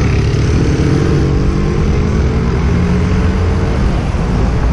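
Steady wind and road rumble on a moving action camera's microphone, with street traffic alongside; a passing vehicle's engine note falls in pitch over the first couple of seconds.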